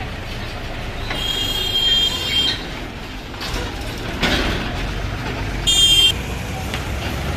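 Mahindra tractor's diesel engine running with a low rumble as it passes close by pulling a loaded trolley. A vehicle horn sounds for about a second and a half about a second in, and a short horn toot comes about six seconds in.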